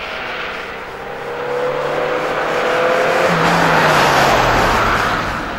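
Ford Focus race car accelerating out of a hairpin, engine revs climbing, then passing close by, loudest about four seconds in, with the engine note falling as it goes away.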